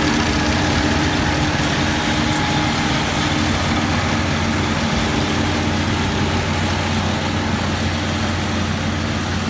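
Kubota ER112 rice combine harvester running, its engine humming steadily at an even speed with mechanical noise over it.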